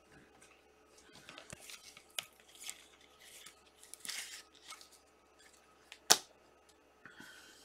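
Trading cards being handled: soft scrapes and swishes of card stock sliding against card, with one sharp tap about six seconds in.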